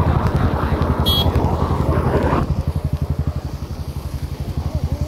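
An engine idling with a steady low pulse of about eleven beats a second, under a rushing noise that drops away about halfway through. A brief high chirp sounds about a second in.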